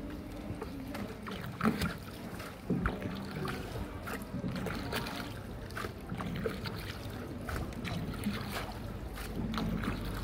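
Small tour boat moving along a canal: a steady low hum with water splashing and small clicks from the boat, and two louder knocks a little under two and about three seconds in.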